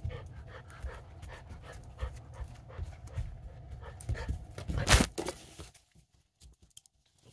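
Large-breed puppy panting in quick, even breaths, with one sharp knock about five seconds in.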